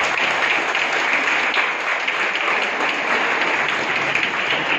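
Audience applauding: a steady round of clapping.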